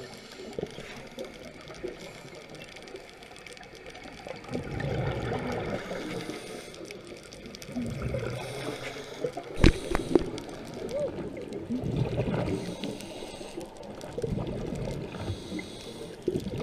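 Scuba diver breathing through a regulator underwater, with swells of exhaled bubbles rising past the microphone every few seconds. There is a sharp click a little under ten seconds in.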